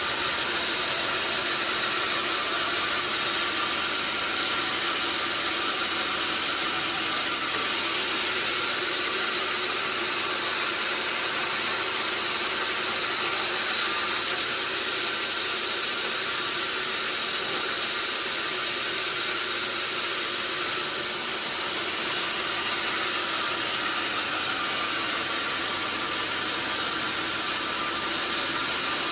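Sawmill saw and machinery running steadily as a continuous high, hissing mechanical noise, dipping slightly about two-thirds of the way through.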